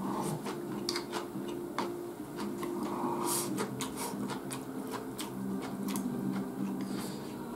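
Chopsticks clicking against a rice bowl while rice is scooped into the mouth and chewed close to the microphone: a quick, irregular run of small clicks and mouth noises over a steady low hum.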